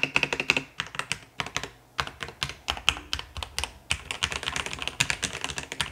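Fast typing on a DrunkDeer A75 keyboard with pre-lubed magnetic Hall-effect switches: a dense stream of key clacks with a brief pause about two seconds in.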